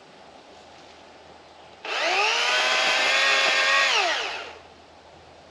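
Master Force 80-volt cordless electric chainsaw run briefly: the motor spins up with a quick rise in pitch about two seconds in, holds at a steady full-speed whine for about two seconds, then winds down with a falling pitch.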